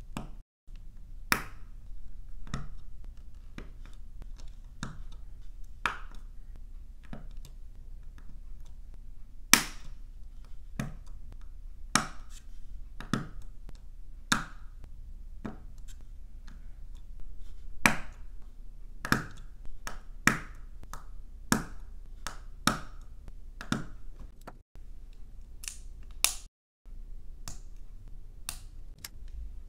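Small plastic LEGO bricks being handled and pressed together by hand: a long run of sharp clicks and snaps at irregular intervals, often a second or so apart.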